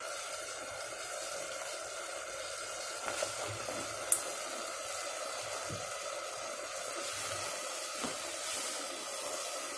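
Quiet, steady sizzle of chopped onion and julienned carrot stewing in a little oil and water in a pot over low heat, with a few light ticks a few seconds in as the carrot strips drop in.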